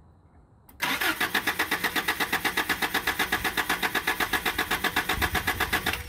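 Toyota 22R four-cylinder engine being cranked by its starter motor, starting about a second in with an even, rapid chug of roughly eight to ten pulses a second. It turns over without catching: a part needed for it to run had been left off.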